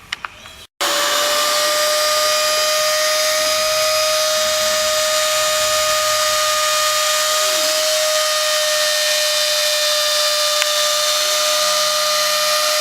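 Dremel rotary tool working as the spindle of a small CNC mill, running at steady high speed with a high whine over a dense hiss as it cuts. The sound cuts in abruptly just under a second in.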